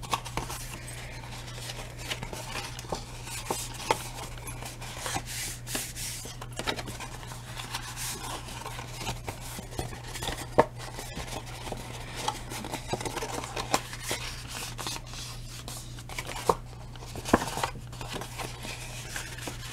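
Stiff cardstock being folded and creased by hand along its score lines: scattered paper rustles and rubbing with a few sharp crackles, over a steady low hum.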